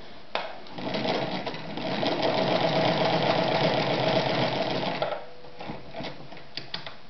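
Podolsk 142M electric sewing machine stitching through test fabric for about four seconds. A sharp click comes first, the run speeds up after a second and then stops abruptly, and a few light clicks follow. This is a test seam after the upper-thread tension was tightened.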